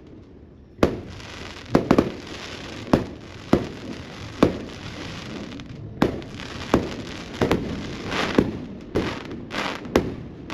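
Fireworks and firecrackers going off: about a dozen sharp bangs at irregular intervals, with crackling in between.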